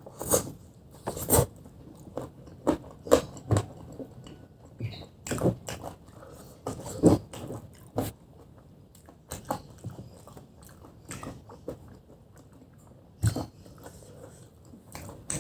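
Biting and chewing crispy, spicy fried chicken: a dozen or so sharp crunches at irregular intervals, with softer chewing between them.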